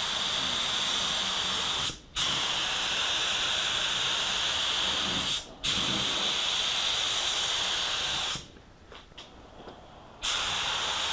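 HTE Black Widow HVLP gravity-feed spray gun spraying clear coat: a steady hiss of air and paint mist. It stops briefly twice, about two seconds and five and a half seconds in, then pauses for about two seconds near the end before spraying again.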